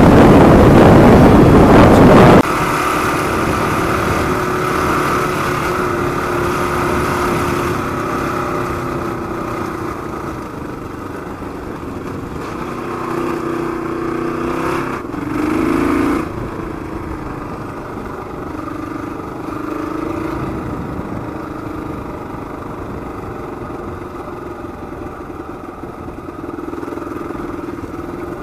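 Gen 1 Kawasaki KLR 650 single-cylinder engine with a Supertrapp exhaust, running at trail speed on a dirt road. It revs up briefly about halfway through, then settles. For the first two seconds or so, a loud wind rush on the bike-mounted microphone at highway speed covers everything, then cuts off suddenly.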